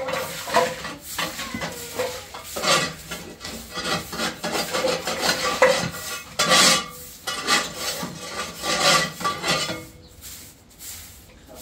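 Stiff brush scrubbing a rough concrete floor in uneven rasping strokes, with a light clatter now and then, dying down near the end.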